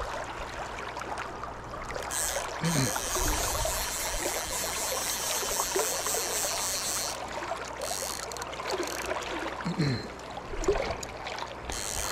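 Shallow river current running over a riffle, a steady rushing and rippling of water.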